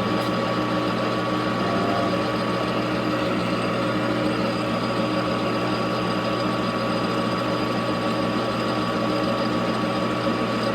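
Grizzly metal lathe running steadily with the spindle turning and the carriage under power feed: a constant motor and gear-train hum with several steady whining tones.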